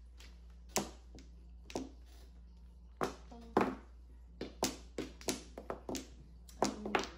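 Mahjong tiles clacking as they are put down on the table during play: about a dozen sharp, irregular clicks, coming in a quicker run a little past the middle.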